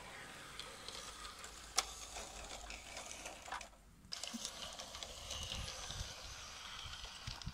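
3D-printed model MÁV M32 diesel locomotive running on garden-railway track, with the whir of its gear drive and the wheels clicking and clattering on the rails, one sharp click about two seconds in. The sound briefly drops out just before four seconds in.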